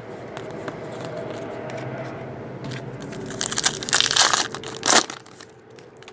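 Trading-card pack wrapper being torn open and crinkled, loudest in a stretch of crackling from about three and a half to five seconds in.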